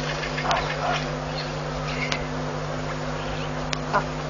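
Waterhole ambience: a steady low hum with a few short bird calls and sharp clicks scattered through.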